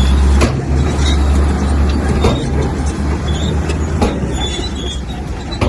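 Bulldozer's diesel engine running under load with a deep, steady rumble, and a few sharp knocks from the machine's working.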